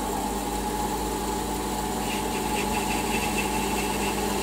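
Warco metal lathe running steadily under power, its motor and drive giving an even hum, while a chamfer is turned on the edge of a pulley blank. A faint light cutting chatter comes in about halfway through.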